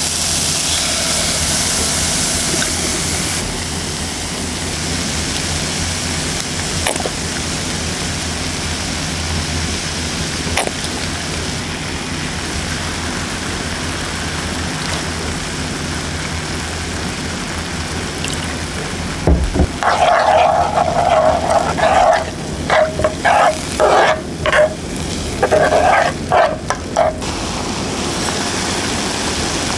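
Grated ginger sizzling and bubbling in a frying pan as spoonfuls of liquid seasoning go in, a steady sizzle that is brightest in the first few seconds. From about two-thirds in comes a run of sharp metallic clinks and scrapes with a ringing tone.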